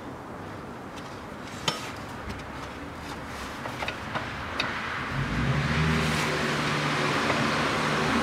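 A few light metallic clicks and clinks of hand tools on engine parts. Then, about five seconds in, a louder steady motor-like running sound sets in, a low hum with a rushing noise over it, and carries on.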